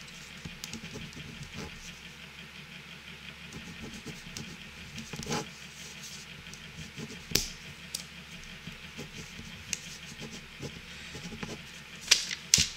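A few scattered sharp clicks and taps over a steady low hiss, with a small cluster of clicks near the end.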